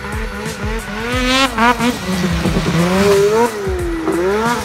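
Snowmobile engine revving hard under throttle, its pitch climbing in a rising whine about a second in, then dropping and swinging up again near the end as the sled charges through deep powder.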